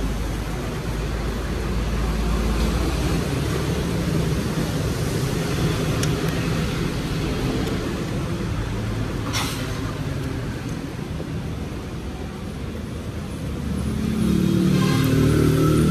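Street traffic: a steady rumble of passing vehicles, growing louder near the end. A single sharp click sounds about nine seconds in.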